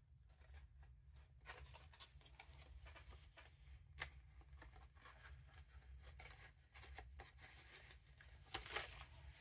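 Near silence with faint paper rustling and a few light ticks as paper tags and journal cards in a junk journal are handled, one sharper tick about four seconds in, over a steady low hum.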